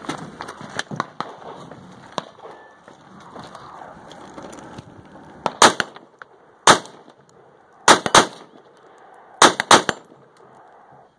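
Gunshots fired at steel targets in a practical shooting stage, about ten shots in quick groups of one to three beginning some five seconds in, with metallic clanging. Before the shooting, scattered clicks and knocks of handling gear and a door.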